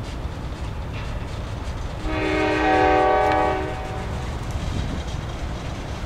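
Freight locomotive's air horn sounds one chord-like blast of about a second and a half, over the steady low rumble of the train running.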